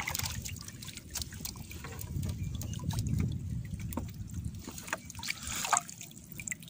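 Seawater splashing, trickling and dripping as hands pull a wet fishing net at the boat's side and work a live fish free of the mesh, with a louder splash near the end. A low rumble runs underneath.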